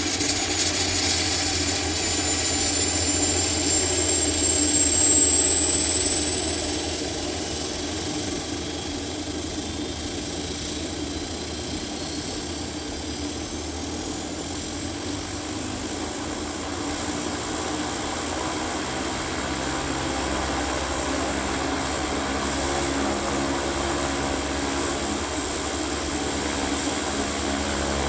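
Allison 250 turboprop engine of a GAF N22B Nomad running up after start: a high turbine whine rises over the first several seconds and then holds steady, over a steady low drone of the engine and propeller.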